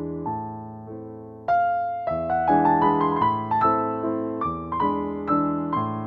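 Instrumental piano music: a melody of single notes over held bass notes, growing louder about one and a half seconds in.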